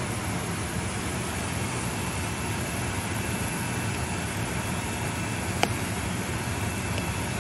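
Pot of soup at a rolling boil, a steady hiss. A single sharp click about five and a half seconds in.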